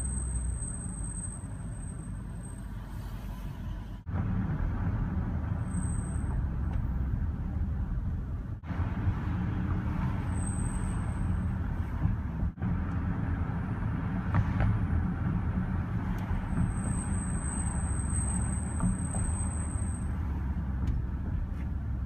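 2014 Range Rover L405 brakes squealing with a high-pitched steady tone, over steady tyre and road noise. There is a long squeal at the start, two short chirps in the middle and another long squeal of about three and a half seconds near the end. The owner takes this recurring squeal as the sign that the pads and rotors are due for replacement.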